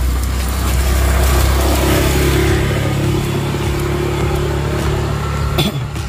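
A low, steady motor rumble like a running engine. It builds over the first second or so and eases off near the end, with a steady tone above it through the middle part.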